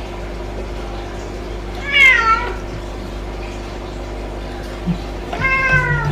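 Domestic cat meowing twice: a loud meow that falls in pitch about two seconds in, and a second, slightly falling meow near the end.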